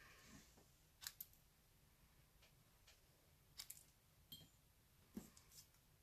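Scissors snipping through a small scrap of white cardstock to cut around stamped words: faint, short snips, a few in quick pairs, spaced irregularly.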